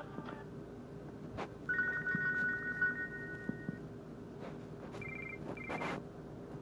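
Nokia C6-00 tones played through a Nokia 130 phone's speaker: a two-pitch tone held about two seconds, then two short higher beeps about half a second apart, with a few sharp clicks between.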